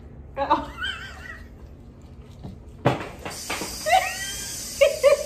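A baby's high squealing call, rising and falling, about half a second in. A sharp click comes near three seconds, and a woman's short bursts of laughter follow near the end.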